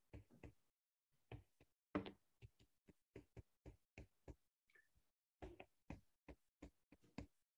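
Faint, irregular clicks and taps of a stylus on a tablet as words are handwritten, about two or three taps a second.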